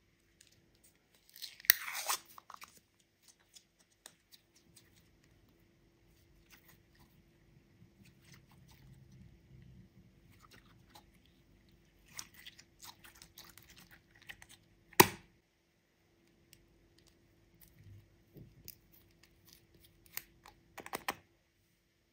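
Clear glitter slime handled and stretched by hand: scattered small crackles and sticky squelches, with a few sharp clicks. The loudest is a single sharp snap about fifteen seconds in.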